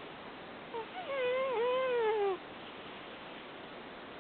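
Sleeping cat snoring: a whistling, pitch-wavering nasal note. It starts with two short peeps about a second in and runs on for about a second and a half, over a steady background hiss.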